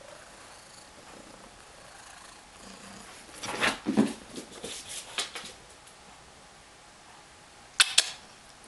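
Siberian cat purring softly, with a burst of knocks and scuffles about three and a half seconds in and two sharp knocks near the end.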